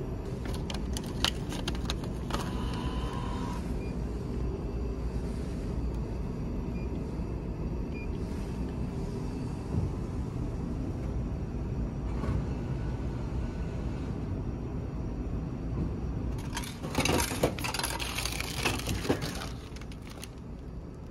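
A frozen-meal vending machine aboard a ferry: a few clicks and a short beep as a meal is bought, then near the end a few seconds of clattering and plastic crinkling as the packaged meal is pulled from the dispensing slot. The ship's steady low rumble runs underneath.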